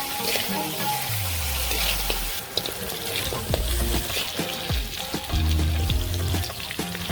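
Background music with a low bass line that slides down about a second in. Under it runs a steady hiss of cooking sounds.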